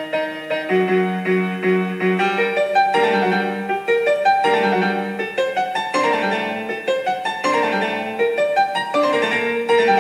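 Piano music: a steady run of struck notes and chords.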